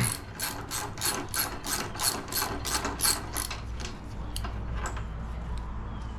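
Hand ratchet wrench clicking in quick, even strokes, about four a second, then slowing to a few scattered clicks and stopping about five seconds in.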